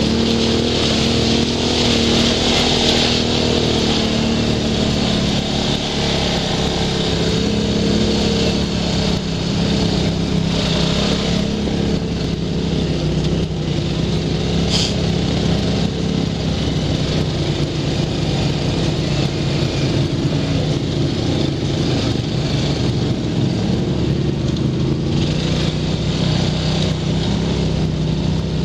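Four-stroke single-cylinder ATV engine running steadily as the quad rides along a dirt trail, with a rushing hiss of wind and trail noise over it.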